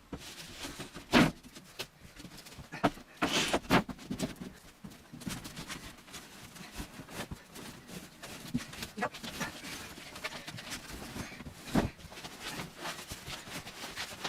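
Scattered knocks and clunks from work on a wooden bed frame, with a loud knock about a second in, a quick cluster of knocks a few seconds later and another loud one near the end.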